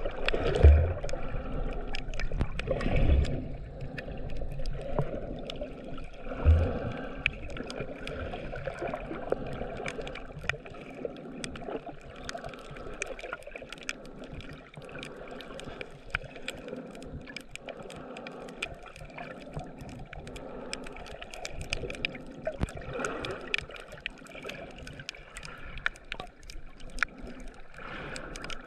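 Underwater sound picked up by a GoPro Hero7 Black held below the surface while snorkeling: muffled water movement with a steady crackle of faint sharp clicks. Three low thumps come in the first seven seconds.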